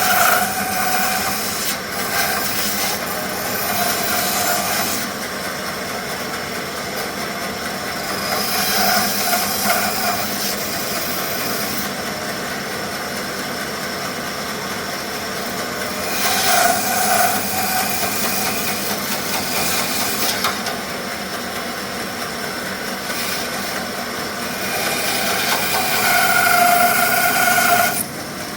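Bandsaw cutting a thick block of wenge hardwood. The saw runs steadily and rises several times to louder stretches with a high ringing note as the blade works through the wood.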